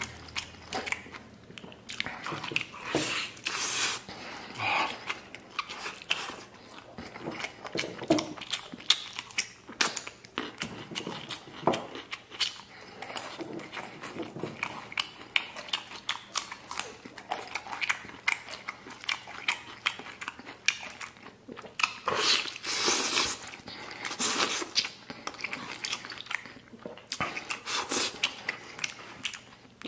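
Close-up eating sounds: biting into and chewing braised meat off the bone, a dense run of short wet clicks and smacks of lips and teeth, louder in spells.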